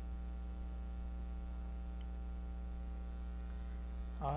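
Steady electrical mains hum: a low, unchanging hum with a row of evenly spaced higher overtones, and no other sound until a man's voice begins right at the end.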